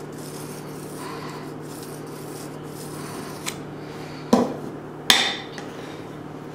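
Faint scraping of a metal icing spatula working buttercream onto the sides of a cake, over a steady low hum, then two sharp knocks of the metal spatula about four and five seconds in.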